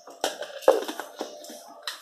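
A few sharp clicks and knocks of hard objects being handled, four in about two seconds, the second the loudest.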